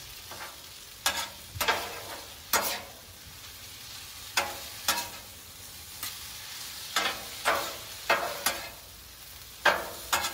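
Stir-fried udon noodles and vegetables sizzling on a Blackstone griddle's steel cooktop, under about a dozen irregular sharp metal clacks and scrapes of spatulas striking and sliding on the plate as the food is tossed.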